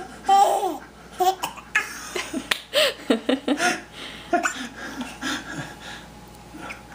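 A young child laughing and giggling in many short, irregular bursts.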